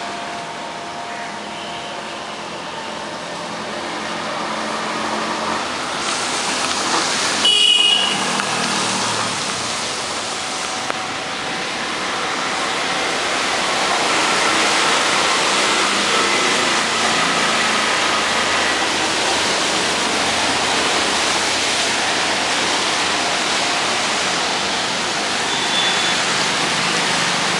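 Steady rain falling on trees and wet pavement, a continuous wash of noise that grows louder about halfway through. A brief sharp sound about eight seconds in stands out above it.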